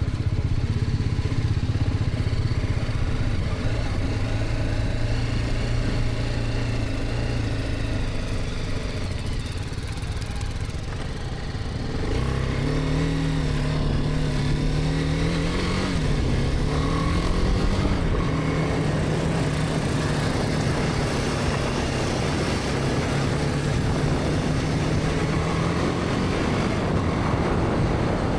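BMW G310R's single-cylinder engine running under way: a steady low note at first that eases off around ten seconds in, then picks up at about twelve seconds, rising with a brief dip near sixteen seconds before holding at a steady, higher pitch.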